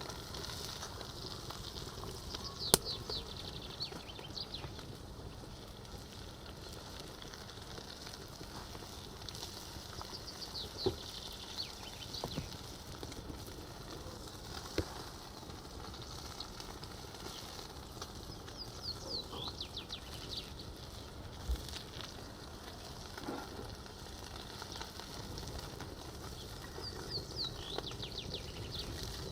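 A songbird sings short phrases of quick descending high notes, one about every eight seconds, over the faint steady sizzling of a frying pan. A few sharp clicks stand out, the loudest about three seconds in.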